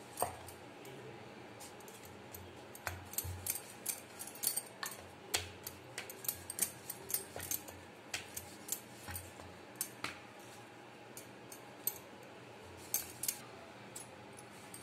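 Wooden rolling pin clicking and knocking against a wooden rolling board as small rounds of dough are rolled out: light, irregular clicks, a couple each second.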